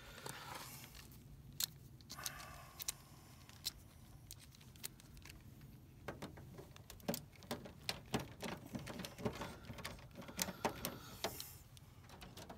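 Faint, scattered metal clicks and scrapes of a screwdriver working the terminal screw of a 20 amp circuit breaker to loosen it, the clicks coming thick and fast in the second half.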